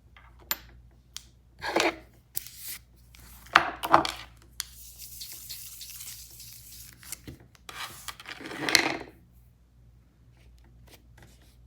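Small nail-art supplies handled on a tabletop: scattered light clicks and knocks with a few louder rustling scrapes, and a soft scratchy hiss for a couple of seconds in the middle.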